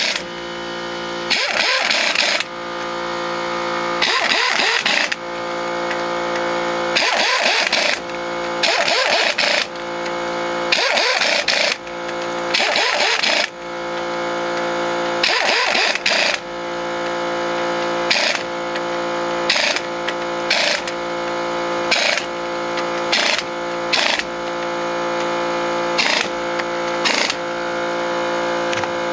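Impact wrench hammering the axle-shaft-to-hub nuts tight, one nut after another: about fifteen short rattling bursts of roughly a second each, getting shorter and closer together in the second half. A steady hum runs underneath.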